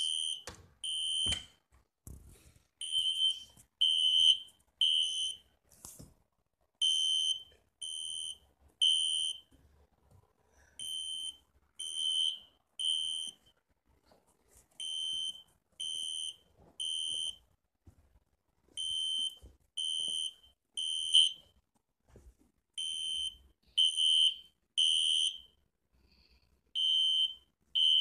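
Fire alarm sounding the temporal-three evacuation pattern: three high-pitched beeps about a second apart, then a pause, repeating. The title says it was set off by smoke. There are a couple of knocks in the gaps.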